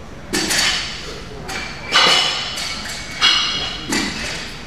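A loaded Olympic barbell with bumper plates being pulled from the floor and caught in a clean, echoing in a large gym. About four sharp, loud sounds come roughly every second and a half, each ringing on briefly: clanks of the bar and plates mixed with shouts of encouragement.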